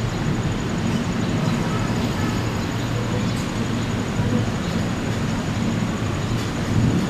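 A train's steady low rumble, with a faint high-pitched whine over it.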